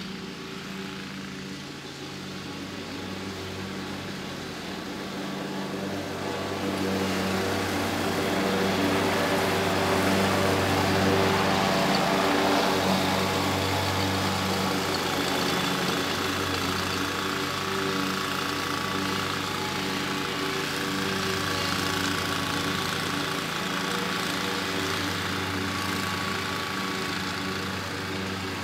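Toro Z Master zero-turn riding mower running while cutting grass: a steady engine drone with blade-deck noise. It grows louder as the mower comes closer, peaking around the middle, then holds steady.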